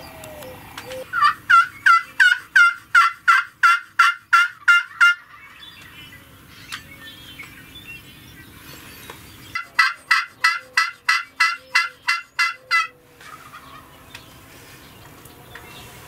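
Wild turkey calling: two loud runs of about a dozen quick, evenly spaced notes, three to four a second, the first lasting about four seconds and the second starting a few seconds later.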